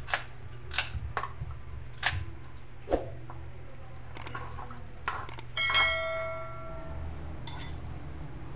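Kitchen knife chopping onion on a plastic cutting board, five sharp knocks in the first three seconds. A few soft clicks follow as the pieces are moved, then a glass bowl is struck once and rings for about a second, the loudest sound.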